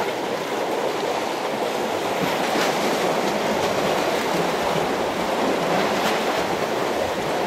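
Steady rushing wash of seawater against a harbour breakwater, with a couple of faint ticks.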